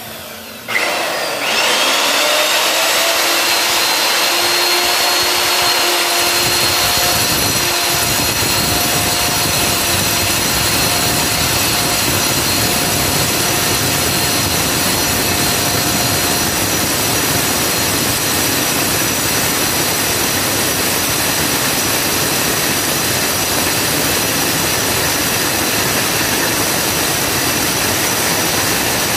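Electric diamond core drill on a rig stand switched on just under a second in, its motor whine rising briefly and then running steady while the water-fed core bit grinds into the tiled floor.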